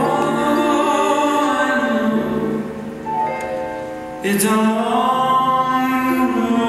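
A male singer sings a song live into a handheld microphone, over instrumental accompaniment. One phrase ends about three seconds in, the accompaniment carries on alone for about a second, and the next phrase begins.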